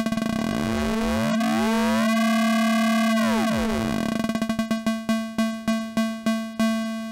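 Modular synth tone shaped by a Make Noise Maths cycling exponential envelope through a VCA, as the envelope's rise and fall are turned. The repeats speed up until they blur into a buzzing held tone with sweeping, whistling overtones, then slow back into separate plucks that fade quickly, about three a second, spacing out toward the end.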